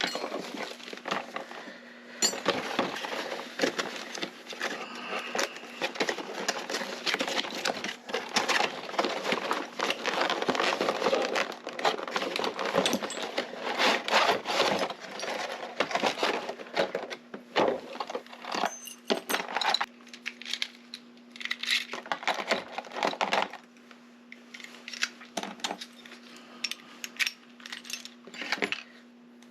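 Busy handling of a packaged lock and its keys: plastic packaging crinkling and rustling with many small metal clicks and clinks, thinning out near the end, over a faint steady hum.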